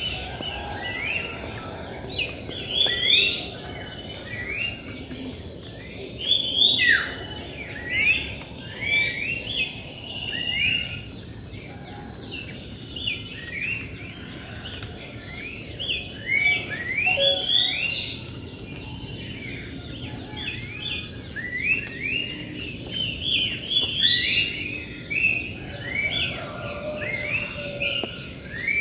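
Wild birds singing: many quick overlapping chirps and short whistles, over a steady high-pitched insect drone.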